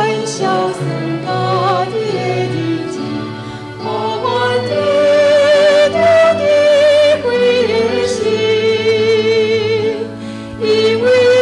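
A woman singing a slow worship song in Taiwanese Hokkien into a microphone, with instrumental accompaniment. She holds long notes with a wavering vibrato.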